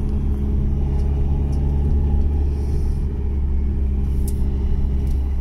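Ford Transit 4x4 van driving on an icy road, heard from outside the cab: a steady low rumble of engine and tyres.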